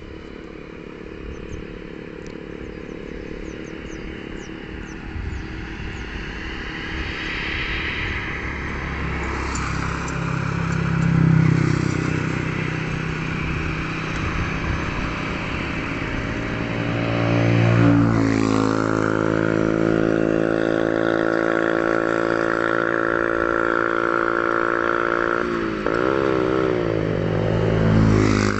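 Airbus A321-211's twin CFM56 turbofan jet engines at takeoff thrust during the takeoff roll, building in loudness as the airliner accelerates down the runway. About two-thirds of the way through, the engine tone sweeps down in pitch and settles into a strong steady whine as the jet passes.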